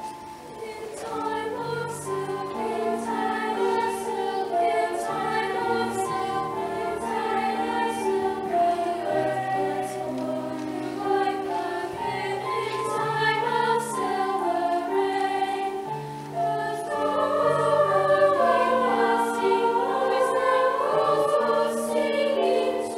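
High school women's choir singing in several parts, getting louder about two-thirds of the way through.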